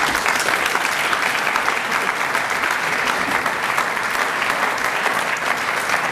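A large audience applauding: many hands clapping together, breaking out all at once and holding steady.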